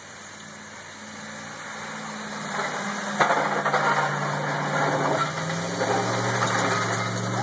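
Plow truck's engine running and growing louder as it comes closer, its pitch dropping about six seconds in. A single sharp knock sounds about three seconds in.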